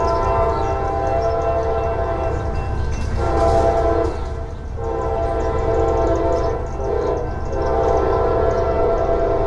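CSX diesel freight locomotive's multi-note air horn sounding a run of long blasts, with brief breaks about three seconds in, near the middle and around seven seconds in. The low rumble of the locomotives runs underneath.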